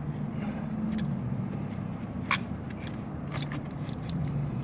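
A few sharp metallic clicks and taps of hand tools being handled, over a steady low hum.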